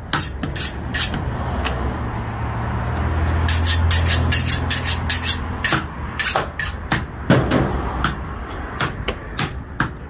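Heavy cleavers chopping goat meat and bone on wooden stump blocks: repeated sharp chops at an irregular pace, several at a time from more than one butcher. A low engine hum swells up in the middle and fades again.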